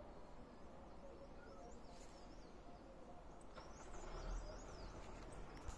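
Faint outdoor ambience with a low steady rumble, over which a bird chirps short high notes about two seconds in and again in a quick run from about three and a half seconds.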